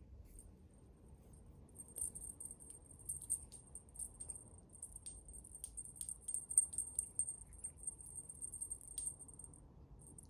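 A small jingle bell rattling in quick, irregular shakes for about eight seconds, starting about two seconds in.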